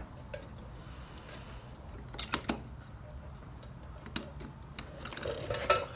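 Scattered light clicks and taps of hand tools and small parts being handled while working on a motorcycle's rear brake caliper: a couple about two seconds in, one about four seconds in and a cluster near the end, over a low steady hum.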